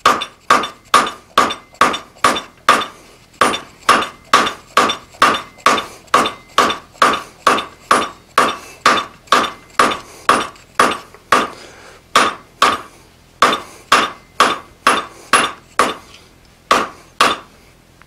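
Hand hammer striking a hot steel bar over the anvil horn in a steady run of blows, about two to three a second, each with a short metallic ring, with a couple of brief pauses. This is drawing out the tang of a drawknife blank.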